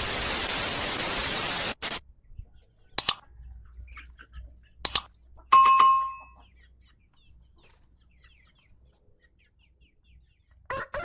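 End-screen sound effects: a short burst of hiss, two sharp clicks and a ringing bell ding, then silence, until a rooster starts crowing near the end.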